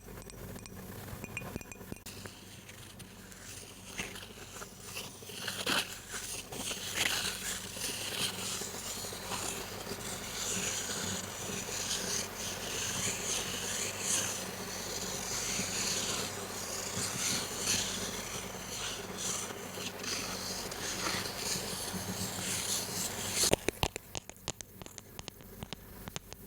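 Close-miked ASMR trigger sounds: a dense crackling and scratching of small clicks, handled close to the microphone. It ends with a sharp click near the end.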